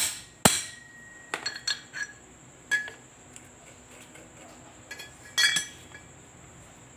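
Metal knocks and clinks from refitting a bicycle bottom bracket part into the frame. It starts with two sharp knocks about half a second apart, the second ringing briefly, followed by lighter clinks and a short cluster of taps near the end.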